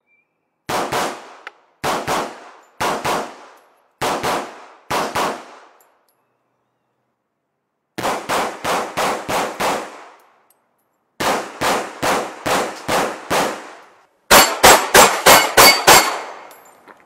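Chiappa MC27 semi-automatic pistol being fired: first about five shots roughly a second apart, then three fast strings of six to eight shots. The last and loudest string rings steel plates, a metallic clang over each shot.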